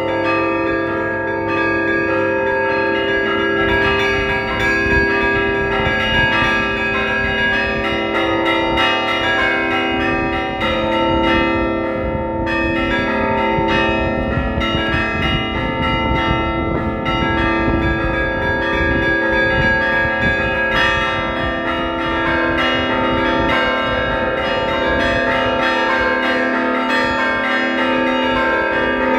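Russian Orthodox church bells rung by hand from the belfry: a continuous peal of small bells struck in a quick, dense rhythm over the longer ringing tones of larger bells.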